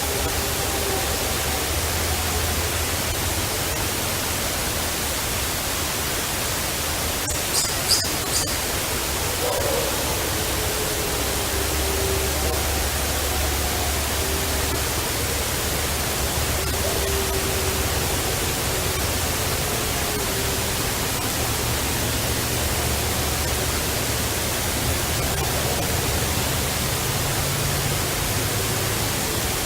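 Heavy steady hiss of a field recording. Under it, faint drawn-out wavering calls come and go, sliding slowly up and down in pitch. Two or three sharp clicks come about eight seconds in.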